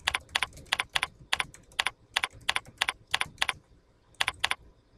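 Typing on a computer keyboard: a quick run of keystrokes, several a second, that breaks off about three and a half seconds in, followed by a few last taps shortly after.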